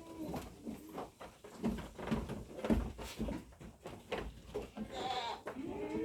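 Nubian goats bleating, one call at the start and another about five seconds in, among scattered knocks and shuffling from the pen.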